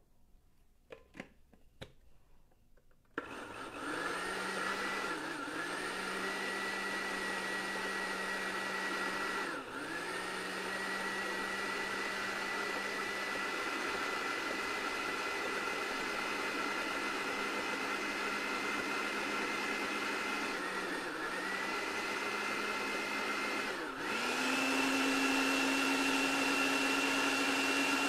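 Countertop blender blending thick pesto: a few clicks, then the motor starts about three seconds in and runs with a steady whine. It dips briefly four times and switches to a higher, louder speed near the end.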